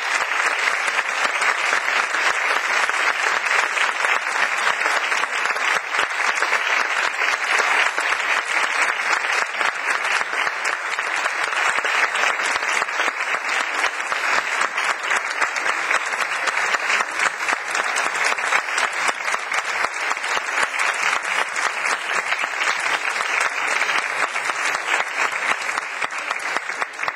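Audience applauding: dense, steady clapping from a seated crowd that carries on unbroken throughout.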